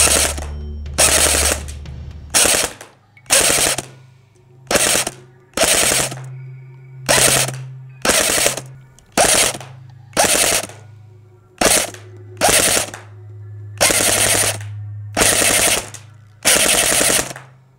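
CYMA MP5A4 electric airsoft gun firing about fifteen short full-auto bursts at a paper target, roughly one burst a second, each a fraction of a second long.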